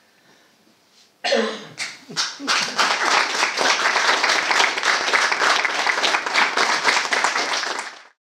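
Audience applause: after a sudden loud start, a few separate claps grow into dense, steady clapping that cuts off abruptly near the end.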